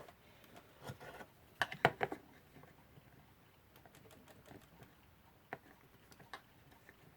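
Cotton bud soaked in acetone rubbed over the brass plates of a small clock movement: light scratching with scattered small clicks and taps from handling the parts, a quick cluster of sharper clicks about two seconds in.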